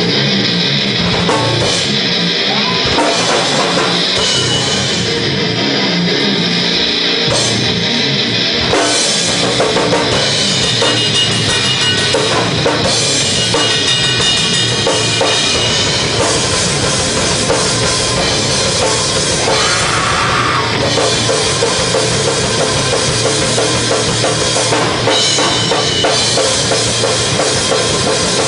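Live rock band playing loudly and continuously: a Premier drum kit with bass drum, and electric guitar and bass guitar.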